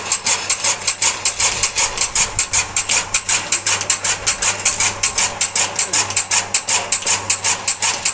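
Motor-driven chaff cutter running: its belt-driven flywheel with cutting blades spins, giving a steady, even clacking about five times a second over the electric motor's hum.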